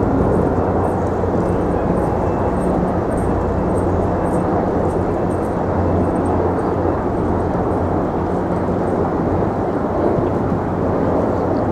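Wind buffeting the microphone, loud and steady, over a low hum of city traffic or machinery.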